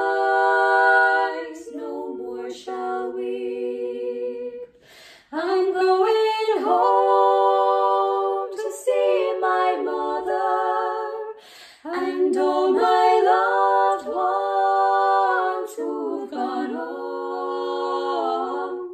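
Three women's voices singing a cappella in close harmony, holding long notes, with short breaks between phrases about five and twelve seconds in.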